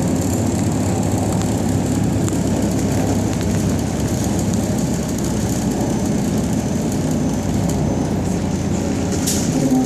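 Belkommunmash AKSM-221 trolleybus heard from inside the cabin while running between stops: a steady rumble of the running gear and tyres on the road. A short hiss comes near the end.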